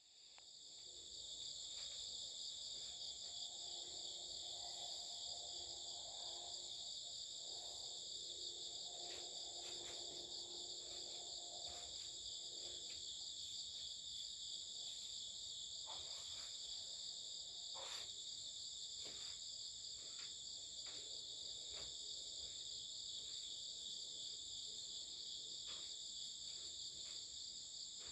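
Chorus of singing insects, several kinds trilling together in a steady, high-pitched drone, with a few soft clicks partway through.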